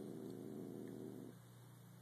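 A pet's low, rapidly fluttering sniffling noise that stops about a second and a half in.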